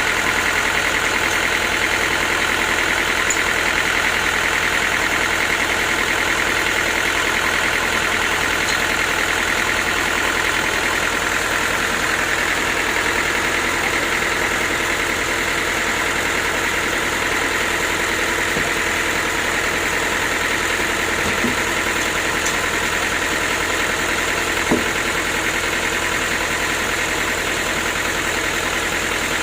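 A sawmill running steadily: an engine-driven machine keeps an even, unchanging mechanical sound, with a couple of faint brief ticks.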